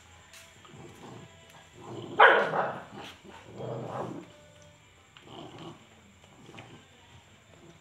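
Dogs growling and snarling at each other as they eat from one shared plate. There is a loud snarl about two seconds in, a lower growl a second and a half later, then softer growls.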